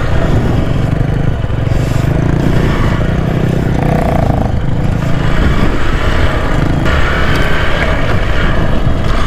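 Hero XPulse 200's single-cylinder engine running steadily while the bike is ridden slowly along a dirt trail. The sound is a loud, even rumble.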